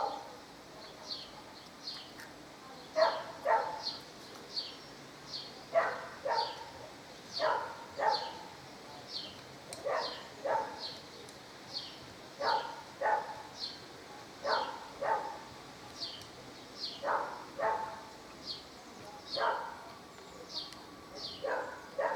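A dog barking over and over, mostly in quick pairs, with a bird chirping steadily about twice a second behind it.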